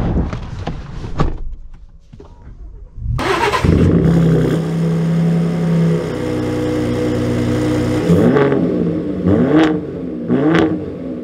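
A few clicks and knocks, then the Ford Raptor's 3.5-litre twin-turbo V6 starts about three seconds in with a flare of revs and settles to a steady cold high idle. From about eight seconds in it is blipped repeatedly, about one rev a second, each rising and falling in pitch.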